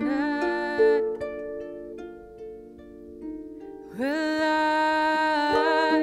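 Harp and a woman's singing voice: a held sung note over plucked harp notes, then the harp ringing on alone for a few seconds, and the voice coming back in with an upward scoop about four seconds in.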